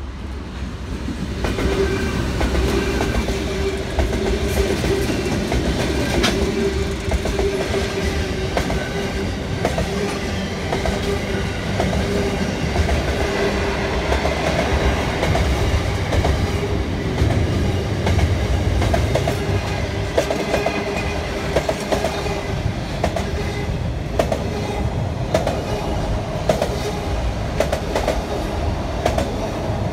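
Freight train passing, its wheels clicking over rail joints with a continuous rumble and a steady humming tone; the sound swells about a second and a half in.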